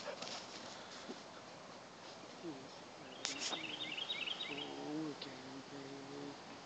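Faint backyard ambience: a short click about three seconds in, then a brief burst of high bird chirps, followed by a few low, steady-pitched calls.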